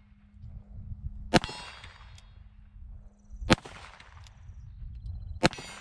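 A Cimarron Pistoleer .45 Colt single-action revolver with a 5.5-inch barrel fired three times, about two seconds apart. Each shot is followed by a brief metallic ring.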